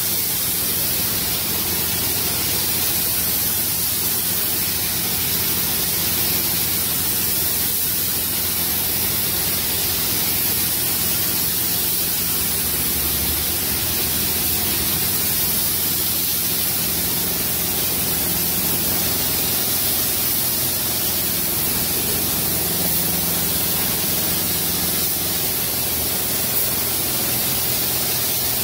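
Compressed-air gravity-feed paint spray gun hissing steadily as it sprays paint onto a car panel.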